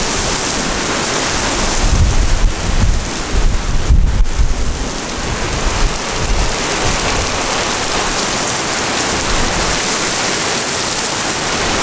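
Heavy rain pouring steadily in a severe thunderstorm. A low rumble swells for a few seconds starting about two seconds in.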